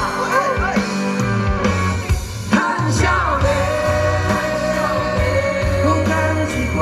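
Rock band playing the song live, with singing; a long held note comes in about three seconds in.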